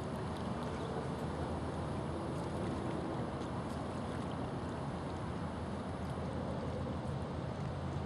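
Steady low rumble and hiss of outdoor background noise, even throughout, with no distinct duck calls.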